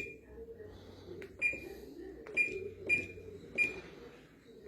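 Washing machine control panel beeping as its buttons are pressed to select the spin cycle: about five short, high beeps at irregular gaps, each with a button click.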